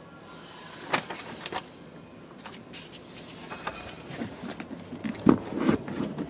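Objects being handled: scattered light clicks and rustling, then a couple of louder knocks about five seconds in.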